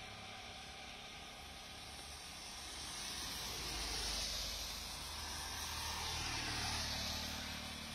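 Steady hiss of rain falling on a wet road, with the swish of tyres on wet asphalt swelling twice as vehicles pass, midway and again near the end.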